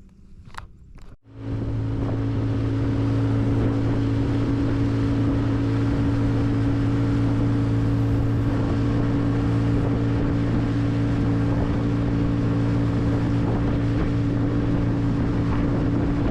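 A few sharp clicks, then, from a cut about a second in, a boat's motor running at a steady, unchanging pitch under a rush of wind and water noise, as when a boat is under way.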